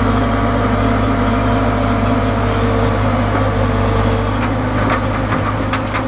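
ACE backhoe loader's diesel engine running steadily while the backhoe arm works, heard from the operator's cab, with a few short knocks near the end.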